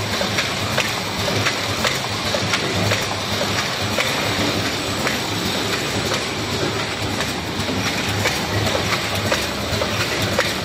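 Vertical automatic bottle cartoning machine running: a steady mechanical clatter with regular sharp clicks as it feeds, forms and fills cartons.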